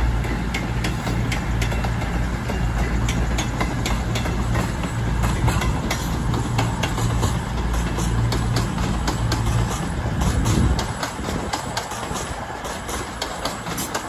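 CrossCountry Class 221 Super Voyager and Class 220 Voyager diesel multiple units pulling through the station, their underfloor diesel engines running with a steady low drone and the wheels clicking over the rail joints. The engine drone falls away about ten and a half seconds in, leaving the clicking and rail noise.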